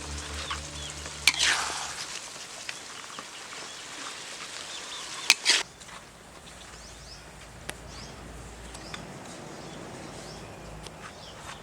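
Outdoor rural ambience with small birds chirping. Two loud, sudden sounds come about a second and about five seconds in, and background music fades out early on.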